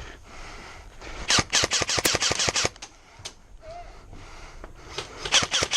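Airsoft gun firing two rapid full-auto bursts of sharp clicks, the first about a second in and lasting over a second, the second near the end.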